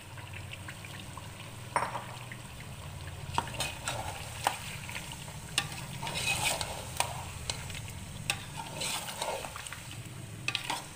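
A spoon stirring and scraping through chicken and masala in a metal pot as whisked yogurt is mixed in, with light sizzling, several sharp clicks of the spoon against the pot, and a steady low hum underneath.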